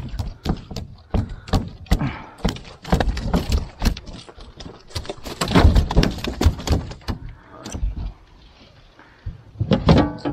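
A hoop net's hoops and netting knocking and rattling against an aluminum boat as the net is hauled aboard and folded. The knocks come in an irregular clatter, with a short lull near the end.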